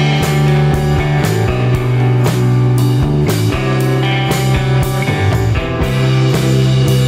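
Rock background music with guitar and drums keeping a steady beat.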